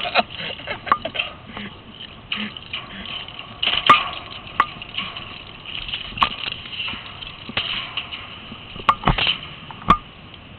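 Scattered knocks and clicks over a faint hiss, with the sharpest knocks about four, six and nine seconds in.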